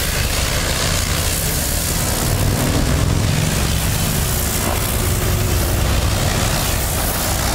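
Engine running steadily with a low drone, under an even hiss, from the machinery at a pressure-washing job.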